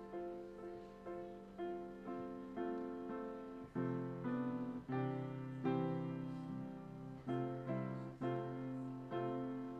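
Piano playing slowly, with a note or chord struck about every half second to a second and each one left to fade. Deeper bass notes join about four seconds in.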